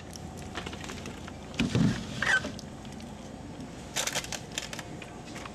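A thump about two seconds in, then the crinkling and clicking of plastic-wrapped frozen ice cream bars as a hand rummages through a shop freezer, about four seconds in.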